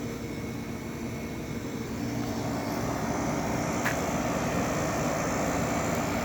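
Running air conditioners: a steady low hum with fan rush, growing slightly louder, and a thin high whine joining about halfway through.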